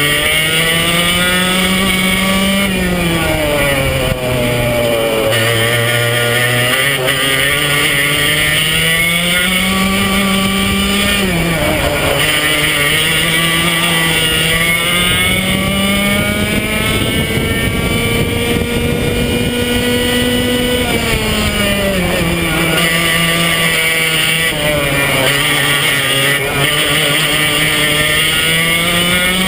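Racing kart's Swedetech HPV2 engine at full throttle, its pitch climbing steadily down each straight and dropping sharply when the driver lifts and brakes for a corner. This happens about four times over the lap.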